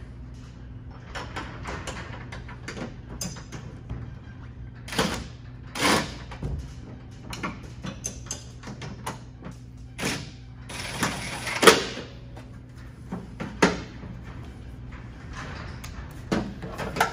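Hand tools and hardware being handled while a hood strut's lower bracket is bolted in: a string of separate metallic clatters, knocks and rattles, the loudest about twelve seconds in, over a steady low hum.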